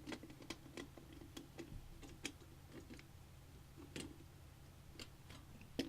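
Light, irregular clicks and taps of small parts being handled and fitted on a computer case, with a louder tap near the end.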